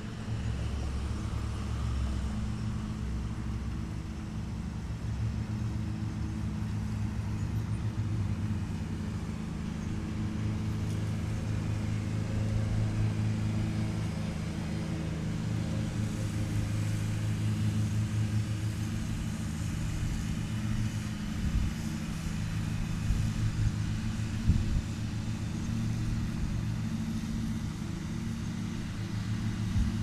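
Riding lawn mower engines running steadily in a low hum, with a few short sharp knocks about two-thirds of the way through.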